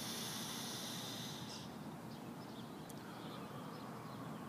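A person's long, slow breath out close to the microphone, a steady hiss that stops about a second and a half in, followed by faint chirps.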